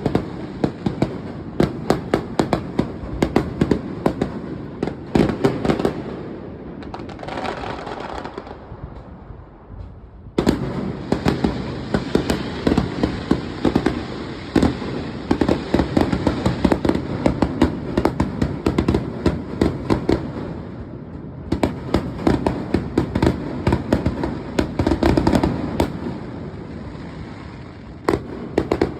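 Fireworks going off in dense, rapid volleys of cracks and bangs, many a second, easing to a quieter crackle about a third of the way through before bursting back.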